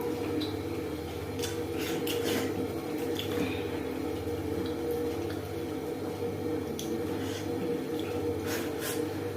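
Close-up eating sounds: chewing and wet mouth smacks of goat meat and dhido, with occasional clicks of a plate or utensil, over a steady low hum.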